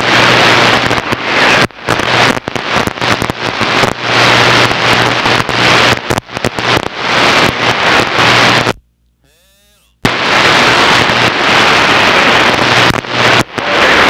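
Loud AM static and crackle from a Kenwood radio tuned to CB channel 28 during skip conditions, with a steady low hum underneath. The noise cuts out for about a second about nine seconds in, then returns.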